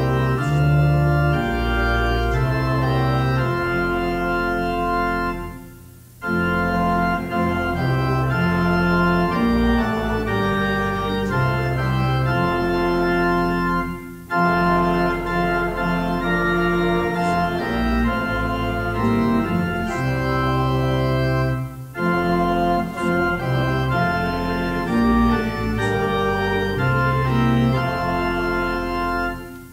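Organ playing held chords in slow phrases, breaking off briefly about every eight seconds between phrases.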